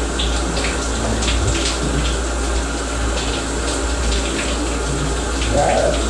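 Overhead shower running steadily, water spraying down and splattering.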